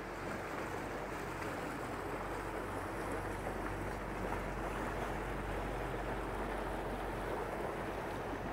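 Motor boat passing close by: a steady low engine drone under the churning rush of its propeller wash and water.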